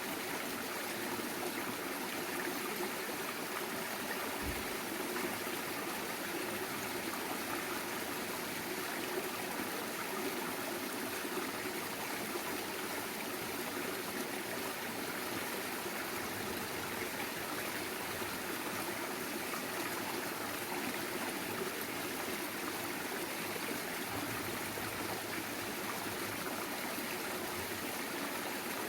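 Mountain stream flowing steadily over rocks, a continuous rushing and trickling of clear water.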